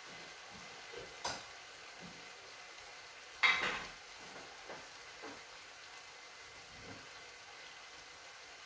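Pan of mixed-grain risotto simmering gently on a gas hob, with a sharp click about a second in and a louder clatter about three and a half seconds in.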